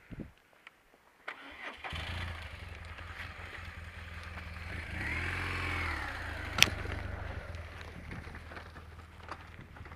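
Motorcycle engine starting about two seconds in and then idling steadily, revved up and back down once around the middle, with a single sharp click shortly after the rev.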